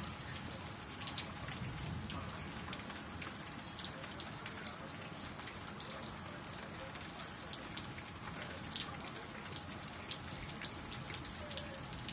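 Steady rain falling, with many single drops ticking and tapping close by over an even hiss.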